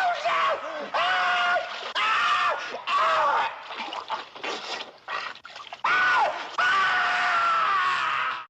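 A string of high-pitched screams from cartoon sound effects, each held on one steady note for under a second and dropping off at the end. The screams come in quick succession, thin out into fainter broken cries in the middle, return, and cut off abruptly at the end.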